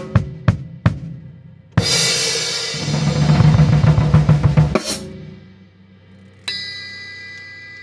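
Acoustic drum kit: a few separate snare and tom strokes, then a loud crash with a dense rolling fill on the drums lasting about three seconds that cuts off suddenly with a final accent. About 6.5 s in, one last cymbal strike rings on with clear, steady tones.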